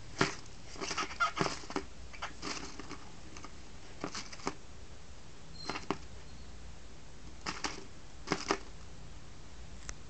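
Paper origami cranes rustling and crinkling in a paper bucket as they are disturbed, in short irregular bursts with gaps between.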